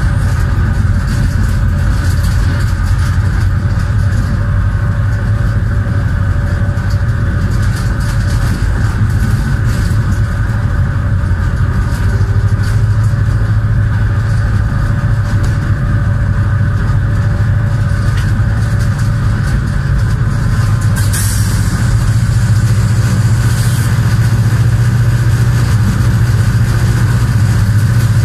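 Diesel-electric locomotive engine running steadily under power, heard from the cab, with a strong low drone and the running noise of the train on the rails. It grows slightly louder about two-thirds of the way through.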